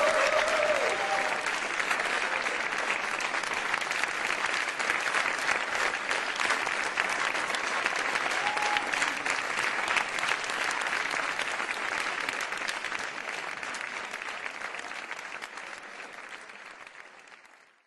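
Audience and performers applauding, dense steady clapping with a couple of short calls from the crowd. The applause fades away over the last five seconds.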